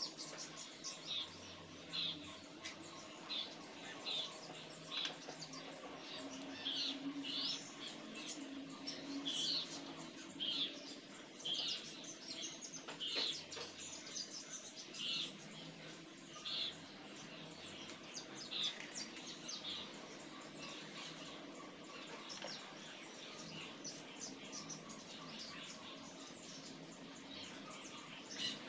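Small birds chirping: short, high chirps every second or so, thinning out after about two-thirds of the way through.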